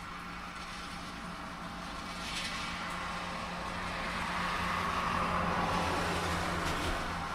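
A car passing on a wet road in the rain: tyre hiss swells over several seconds and is loudest about five to six seconds in, over a steady low engine hum.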